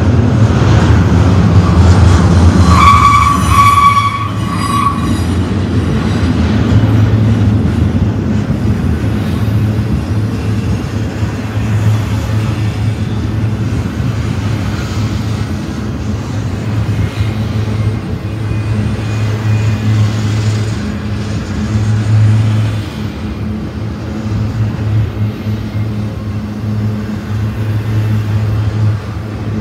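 Double-stack intermodal freight train rolling past close by: a steady rumble of wheels on the rails, with a brief high squeal about three seconds in.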